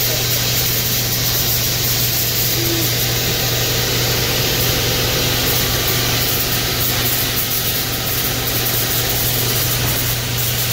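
Blueberry packing line machinery running: the sorting conveyor and its motors give a steady hum under a constant hiss.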